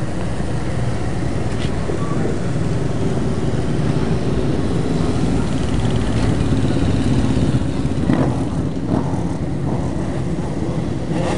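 Several race motorcycle engines running together in a loud, steady drone that swells a little past the middle.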